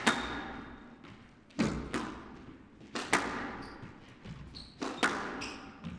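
Squash ball being struck back and forth in a rally: four loud, sharp cracks of racket and wall about a second and a half apart, each ringing on in the court, with fainter knocks between them.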